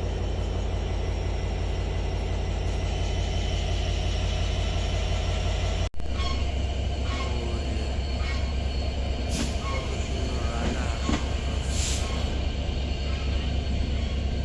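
Steady low rumble of a passenger train. The sound cuts out for an instant about six seconds in, then continues with scattered clicks and two short high squeaks.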